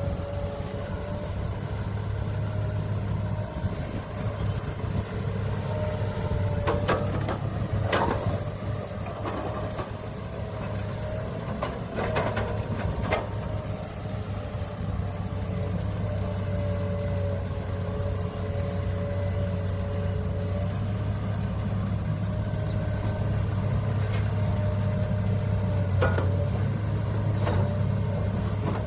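Heavy earthmoving machinery with diesel engines running steadily under load, with a steady whine over the engine drone. Several sharp knocks come about a quarter of the way in, again shortly after, and near the end.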